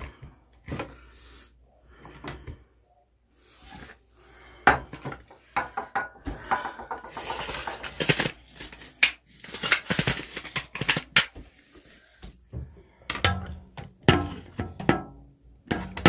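A phone being handled and repositioned: a run of irregular knocks, clicks and rubbing as it is picked up, moved about and set down.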